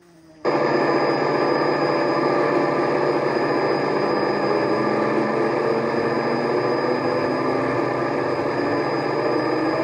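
USA Trains SD70 large-scale model diesel locomotive switched abruptly to full power, its onboard diesel sound and smoke unit running with the motor blocks. It starts suddenly about half a second in and runs loud and steady, one tone slowly rising. The wheels break traction straight away.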